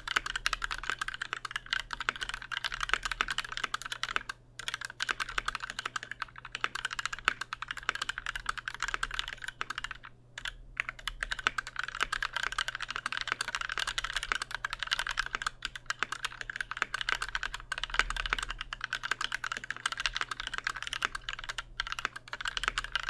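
Continuous typing on a lubed, brass-plate Pearl 40% mechanical keyboard with Durock/Gateron hybrid switches and GMK keycaps: a quick, dense run of keystrokes broken by two short pauses, one about four seconds in and one about ten seconds in.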